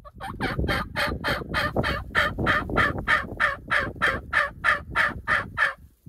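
A turkey calling in a long, even run of about twenty quick yelping notes, roughly four a second, that starts and stops abruptly, over a low rumble.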